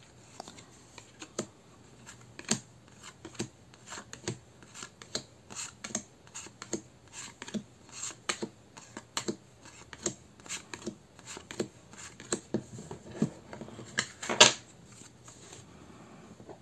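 Tarot cards handled and laid down one at a time, a short click or snap about twice a second, with one louder click near the end, as the deck is checked card by card.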